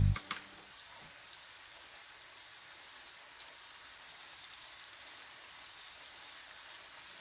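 Oil sizzling steadily in a pan as food deep-fries, with a few faint crackles.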